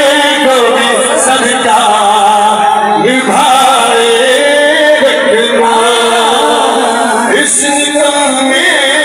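A man singing a slow, melodic chant into a microphone, his voice amplified, with long held notes and a brief pause for breath about three seconds in.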